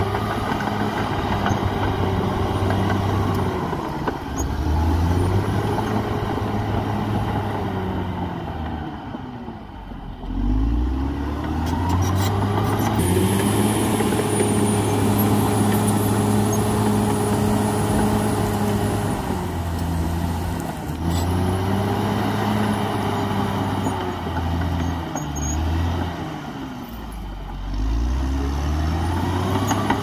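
Caterpillar D6R XL bulldozer's diesel engine working under load. Its pitch rises and falls again and again as the engine revs up and settles back, and it holds one long high, steady stretch in the middle. A few short knocks sound over it.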